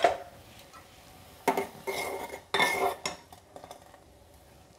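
A spoon stirring in an aluminium pot of rasam, clinking and scraping against the metal as the rasam powder is mixed in. There is a clink right at the start and a few short clattering strokes between about one and a half and three seconds in.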